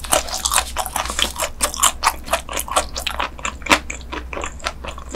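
Chewing a mouthful of raw dotted gizzard shad sashimi eaten bones and all: a quick, irregular run of crunches and wet clicks.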